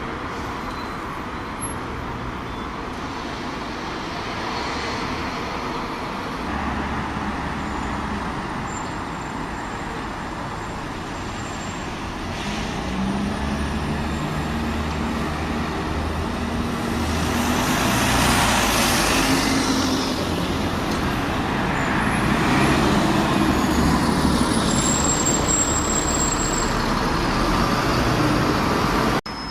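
Road traffic with heavy-vehicle engines running and passing, growing louder in swells through the middle and latter part. Brief thin high squeals come twice.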